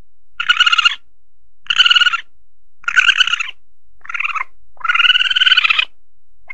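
Asian palm civet (musang pandan) calls played as a hunting lure: five short, buzzy cries in a row, the fourth shortest and the last about a second long.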